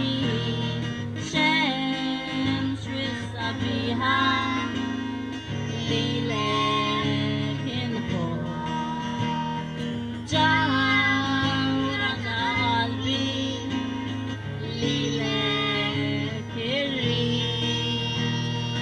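Live song: an acoustic guitar plays held chords while a female voice sings the melody over it.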